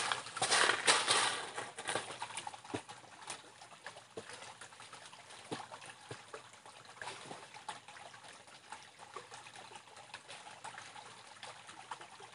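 Small, shallow stream trickling steadily over rocks. In the first couple of seconds a few louder splashy footsteps of boots stepping through the water.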